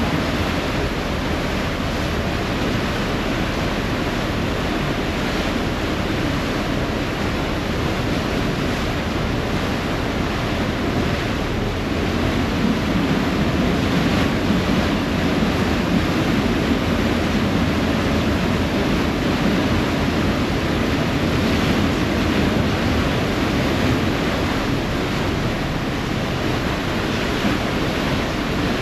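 Ferry's propeller wake churning and rushing at the stern in a steady wash of water noise, with wind buffeting the microphone.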